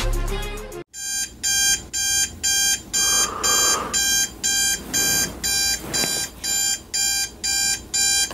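Digital bedside alarm clock beeping in a steady rhythm, about two beeps a second, starting about a second in, after the tail of music fades out.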